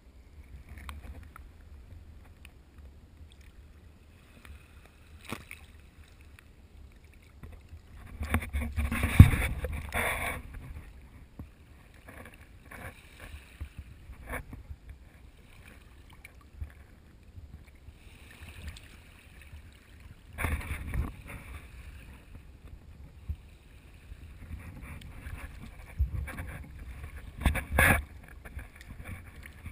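Shallow seawater lapping and splashing around a partly submerged camera at the water's edge: a muffled low rumble, with louder splashing surges about a third of the way in, again about two-thirds in, and near the end.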